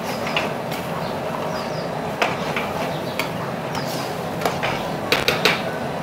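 Metal ladle knocking against a frying pan as a thick curry sauce is stirred: scattered sharp clinks, then three in quick succession near the end, over a steady rushing background noise.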